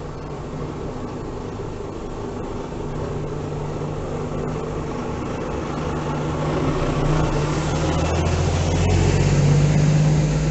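Iveco S-Way 510 truck's Cursor 13 six-cylinder diesel engine running steadily, growing louder toward the end.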